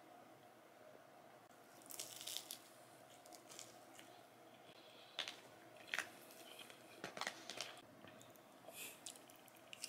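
Faint crunching bites and chewing of a person eating soup dumplings topped with crunchy chili onion, and bread. Separate crunches come every second or so.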